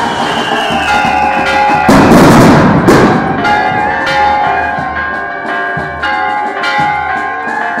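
Church bells ringing with many overlapping strokes, mixed with drumming. About two seconds in, a loud crash lasts about a second.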